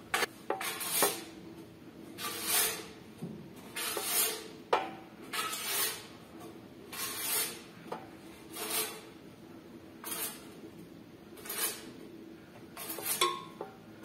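Soft brush sweeping dust off a ceiling fan's blades and motor housing, in short swishing strokes about one every second and a half, with a few light clicks as the brush knocks the fan.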